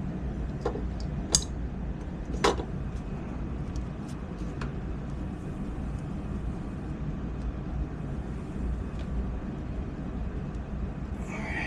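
Small metal parts of a toy train locomotive clicking and tapping as its motor truck is fitted to the chassis: two sharper clicks come about one and a half and two and a half seconds in, with a few faint ticks later. Under them runs a steady low hum.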